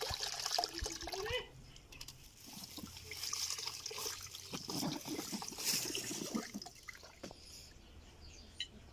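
Water pouring and splashing in two spells: a short one at the start and a longer one from about three seconds in.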